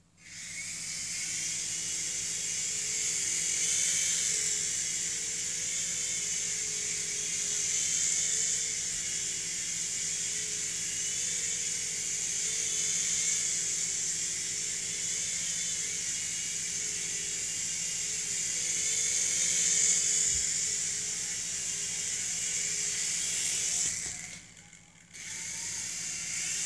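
Small electric RC helicopter's motor and rotor blades whirring steadily, the pitch wavering up and down with the throttle. The whir cuts out for about a second near the end, then starts up again.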